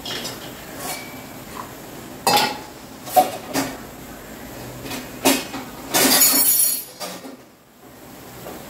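Spoon and steel kitchen vessels clinking and knocking as ground coconut paste is added to a pot of curry: a string of separate sharp knocks, then a longer rasping scrape about six seconds in.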